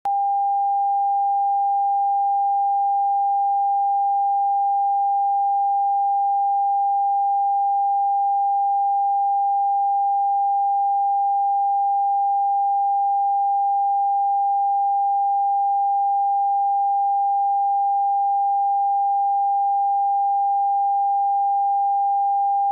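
Television test tone: a single steady sine tone of one unchanging pitch that comes on abruptly with the colour-bar test card, the line-up signal of a station off air.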